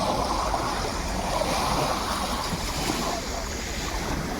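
Sea waves washing on the shore in a steady hiss, with wind buffeting the microphone.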